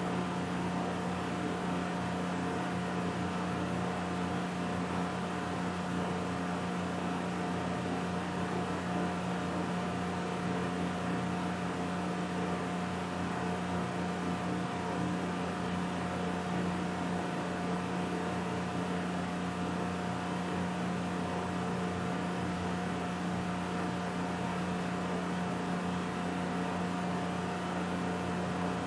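Steady background hum and hiss with a constant low tone and a higher tone, unchanging throughout; no speech.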